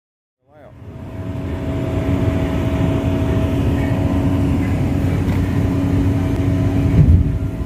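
A steady mechanical drone with a low, even hum, like an engine or machine running continuously. It fades in from silence about half a second in and then holds level, with a brief low thump near the end.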